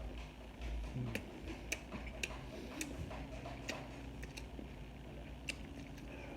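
Chewing a mouthful of fried chicken sandwich: irregular small clicks and crunches, a few to a second, over a low room hum.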